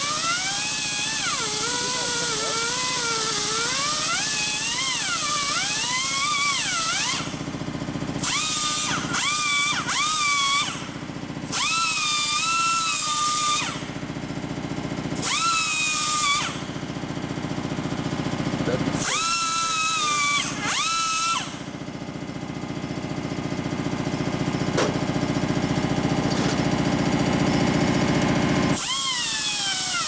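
Pneumatic die grinder with a small burr grinding a metal bracket held in a vise. Its high whine rises and falls in pitch as the bit bites and frees, and it cuts off and starts again several times. For several seconds near the end the whine gives way to a steady hiss and grinding noise.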